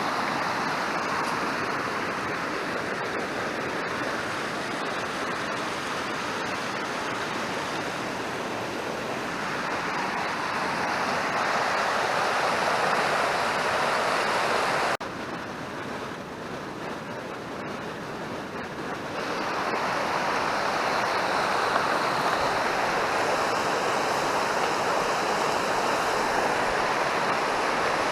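Rushing mountain river, a steady roar of water. It drops suddenly about halfway through and swells back a few seconds later.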